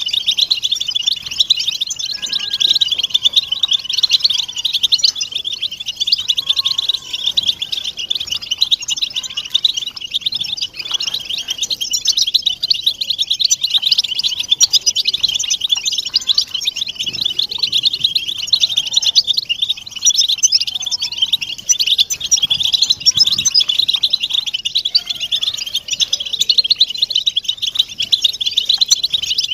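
A flock of European goldfinches chattering together: a dense, unbroken mass of high twittering calls from many birds at once.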